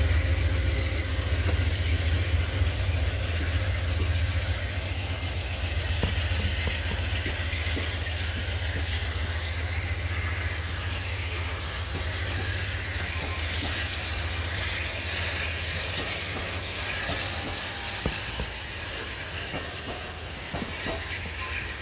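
Amtrak Southwest Chief's bi-level passenger cars rolling past as the train pulls out of the station: a steady low rumble and rail noise with occasional clicks of wheels over the track, easing slightly toward the end.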